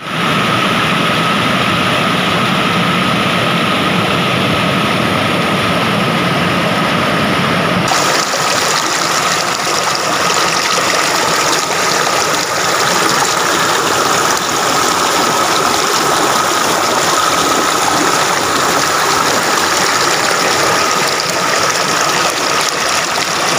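Water rushing over rocks: a small cascading waterfall, then, from about eight seconds in, a shallow stream tumbling over stones with a brighter, hissier sound. A steady thin tone sits beneath the water.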